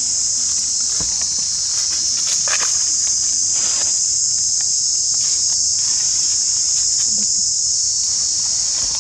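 A steady, high-pitched drone of an insect chorus, with scattered light rustles of dry leaves as a baby macaque scrambles over them.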